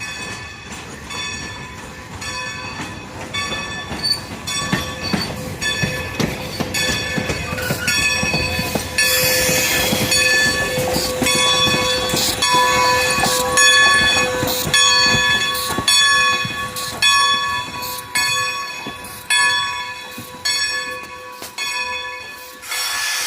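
Steam-hauled train led by Great Western 90, a 2-10-0 decapod locomotive, rolling slowly past. Its wheels click over the rail joints in a regular rhythm under a steady, high squeal from the wheels, with a burst of hiss about nine seconds in.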